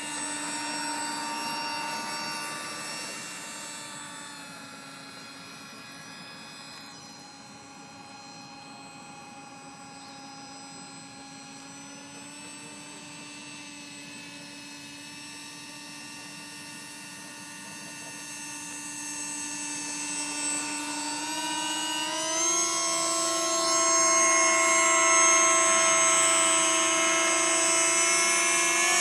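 Electric model Boeing 777's fan motors whining at a steady pitch, easing off slightly about four seconds in. Near the end they are throttled up for takeoff, the whine rising in pitch and getting much louder, then holding.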